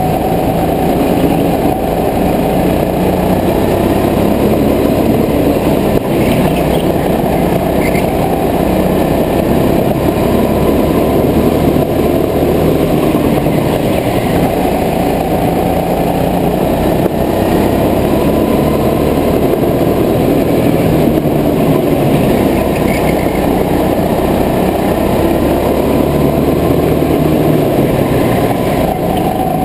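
Go-kart engine running under the driver, its pitch rising and falling as the kart speeds up and slows through the corners of an indoor track.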